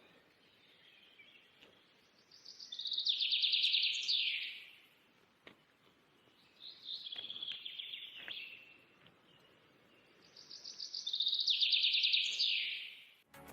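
A songbird singing three phrases about four seconds apart, each a fast run of high repeated notes that ends in a falling sweep.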